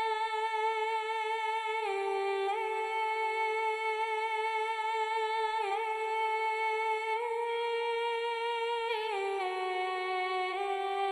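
Background music: one slow, wordless hum-like melody of long held notes, changing pitch every second or two with short slides between them.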